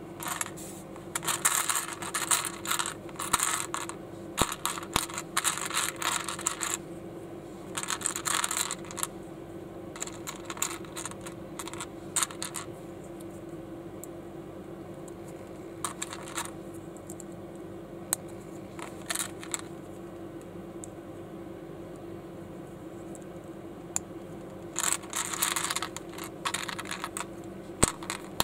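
Small hard plastic building-block pieces clicking and clattering as they are handled, in bursts of rapid clicks separated by pauses. A steady low hum runs underneath.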